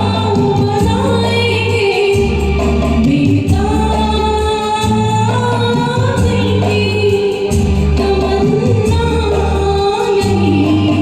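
A woman singing a Hindi film song over a karaoke backing track, holding long notes that slide between pitches above a steady bass line.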